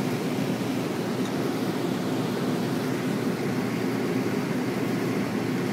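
Steady hum of a walk-in cooler's refrigeration unit running.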